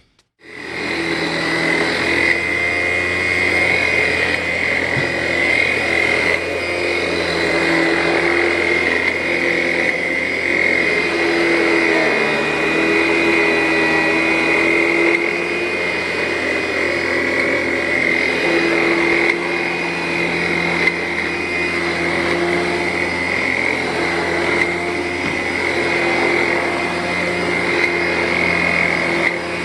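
Vacuum cleaner switched on and running steadily over carpet: a loud motor drone with a high whine, its lower tone wavering slightly as the machine is worked back and forth.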